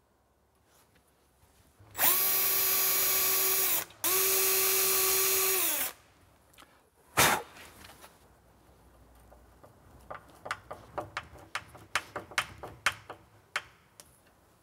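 Power drill running in two bursts of about two seconds each, drilling pilot holes for a door bracket's screws, its pitch sinking as it spins down at the end of each. A sharp click follows, then a hand screwdriver driving a screw into the bracket with a run of small clicks.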